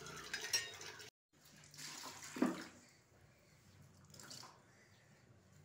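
Water running from a kitchen tap onto a plate in the sink, cut off abruptly about a second in; after it, a few faint brief sounds.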